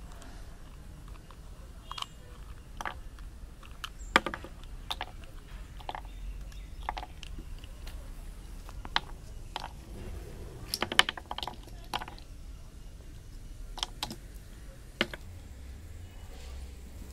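Plastic 3x3 puzzle cube being taken apart by hand: irregular sharp clicks and snaps as pieces are prised out of the cube and set down on the table, with a quick cluster of clicks a little past the middle.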